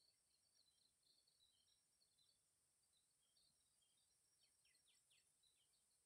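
Near silence: very faint forest ambience of small birds chirping, with a few quick descending calls about four and a half to five seconds in, over a faint steady high hiss.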